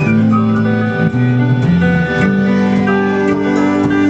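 Live band playing an instrumental stretch of a song, with guitar to the fore: held chords over low notes that change every second or so.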